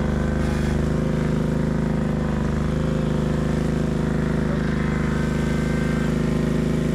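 Engine running steadily at a constant speed close by, an even drone that holds without change and cuts off suddenly at the end.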